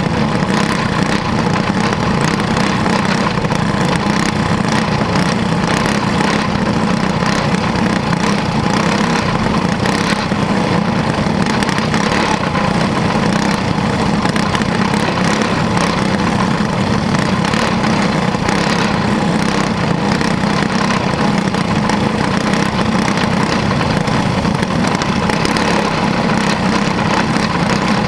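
Quarter midget race car's small engine running steadily at low speed, heard close up from an onboard camera, with other cars' engines alongside.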